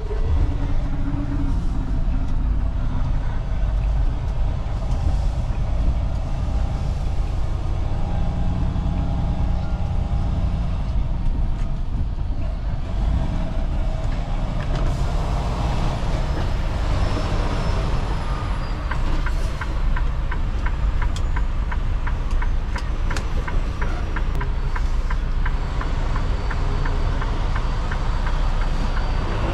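Semi-truck cab at highway speed: a steady low drone of engine and road noise. In the second half a quick, even ticking runs over the drone.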